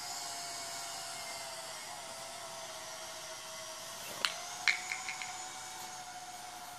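Small toy quadcopter's electric motors and propellers whining steadily overhead, the pitch wavering slightly as it hovers. A few brief sharp sounds come about four to five seconds in.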